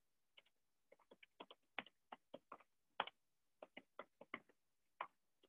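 Faint, irregular clicks of typing on a computer keyboard, about twenty keystrokes as a short phrase is typed.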